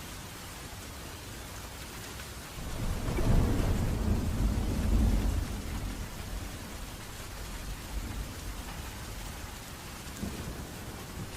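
Steady rain with a roll of thunder: a deep rumble swells about two and a half seconds in, stays loud for a few seconds and fades away, leaving the rain hiss.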